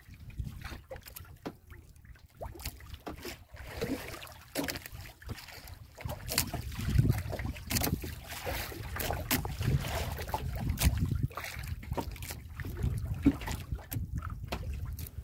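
Small waves slapping and lapping against the hull of a small outrigger boat, with wind buffeting the microphone as a low rumble that grows louder about halfway through, and scattered light knocks.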